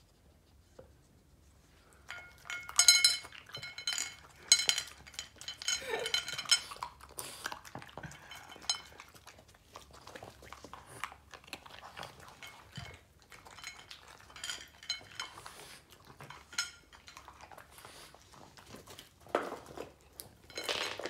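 A dog eating cake off a ceramic plate, knocking the plate so it clinks and rings on the floor again and again, starting about two seconds in.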